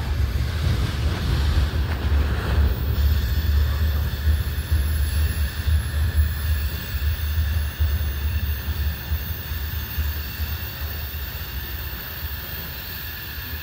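Tail end of a CSX freight train rolling past and away down the track, its rumble slowly fading, with wind on the microphone.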